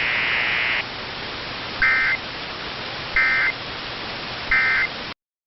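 Emergency Alert System end-of-message tones over a hissy radio broadcast: three identical short buzzy data bursts about 1.3 s apart, the digital 'NNNN' code that closes an EAS alert. A band of hiss stops just under a second in, and the audio cuts off abruptly near the end.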